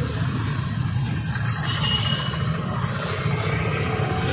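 Steady low engine rumble of road traffic, motor vehicles running without a pause.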